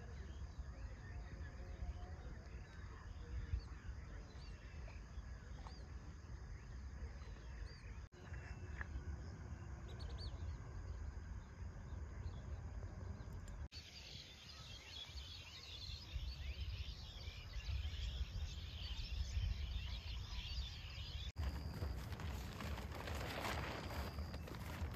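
Outdoor ambience with birds calling over a steady low rumble; the background changes abruptly three times. There is a brief rustling burst near the end.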